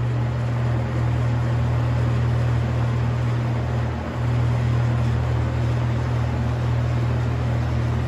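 Vintage Edison box fan running on high speed: a steady low motor hum under the rush of air from the blades, dipping briefly about halfway through.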